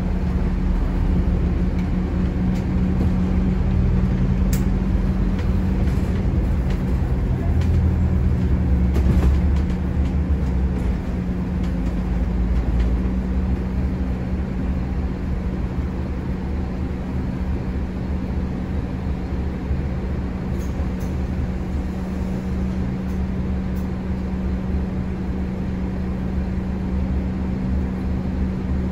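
Scania N270UD Omnicity double-decker bus under way, heard from the upper deck: the five-cylinder diesel engine's steady drone over a deep rumble of road noise, louder for the first ten seconds or so, then easing to an even level.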